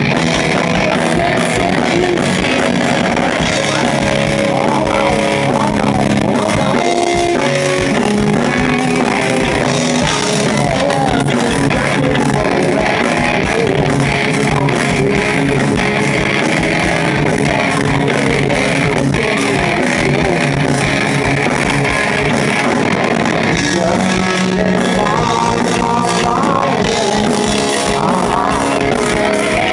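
Live hard rock band playing loud: distorted electric guitar, bass and drums, with a male lead singer.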